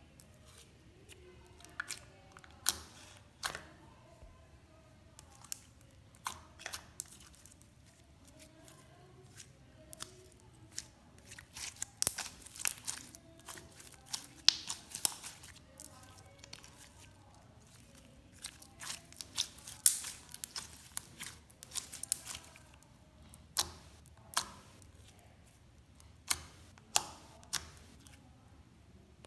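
Slime being squeezed, poked and stretched by hand, making irregular sharp clicks and pops.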